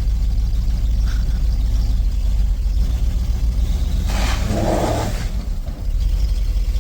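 Steady low engine rumble, with a short burst of hiss about four seconds in that lasts about a second.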